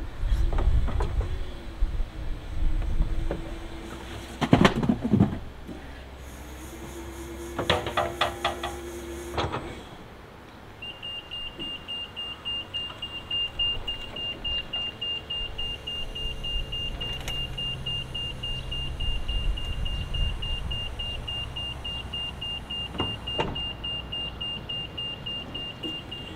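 STILL forklift's hydraulic pump humming in two spells as the mast and bin-tipping adapter are worked, with clanks in between. From about eleven seconds in, its warning beeper beeps rapidly and steadily as the truck backs away.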